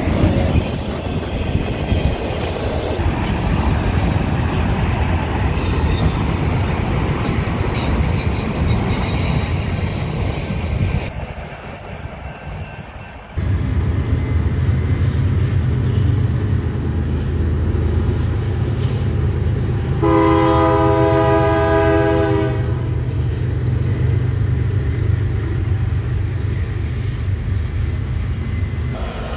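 A Union Pacific SD70M diesel locomotive and its train running past at close range, a dense rumble and wheel-on-rail noise. After a cut, the low rumble of a more distant BNSF freight train, which sounds one chord horn blast of about two and a half seconds roughly twenty seconds in.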